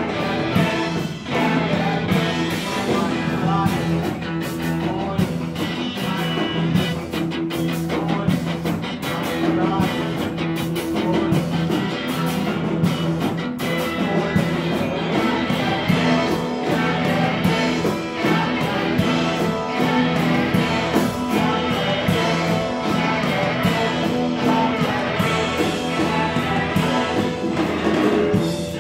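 Rock band playing live in a train tunnel: electric guitars over sustained bass notes and a steady drum beat, loud and dense throughout.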